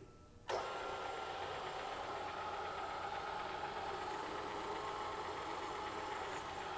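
Bridgeport milling machine spindle running steadily, turning a chamfering tool in a boring head as it breaks the sharp edge of the bore in an aluminium spacer. The sound comes in abruptly about half a second in and then holds even.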